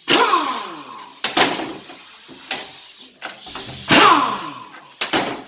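A few sharp metallic clanks and knocks from 700R4 automatic transmission parts being handled and set down during a teardown, some with a short falling ring after the strike.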